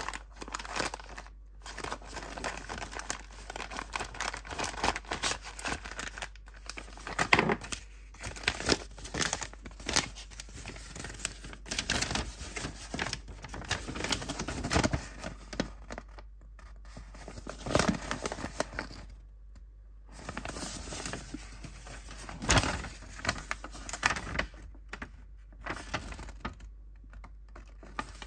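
Plastic zip-lock bags crinkling and paper sheets rustling as they are handled and unfolded, in irregular bursts with short pauses.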